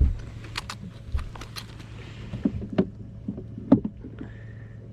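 Steady low hum aboard a bass boat, with scattered sharp clicks and knocks from handling gear on deck; a thump right at the start and a sharp click near the end are the loudest.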